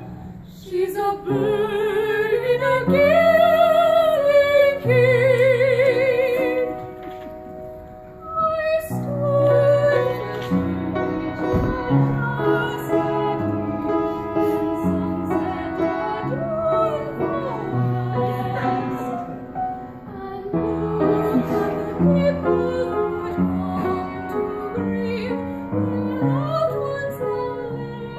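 A woman singing a stage song in a classical, operatic style, with wide vibrato on held notes, over instrumental accompaniment. The music dips briefly and then fills out from about nine seconds in.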